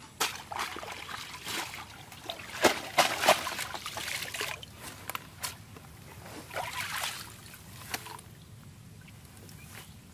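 Water splashing and trickling as a woven bamboo eel trap is tilted and shaken out in shallow water. Irregular splashes and sharp knocks come throughout, loudest around three seconds in, and they die away after about eight seconds.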